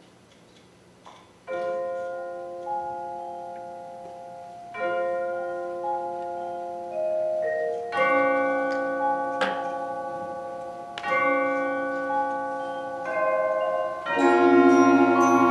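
Middle school concert band playing slow, held wind chords that swell phrase by phrase, with mallet percussion striking bell-like notes over them. The band enters softly about a second and a half in, after a near-silent pause, and grows fuller and louder near the end.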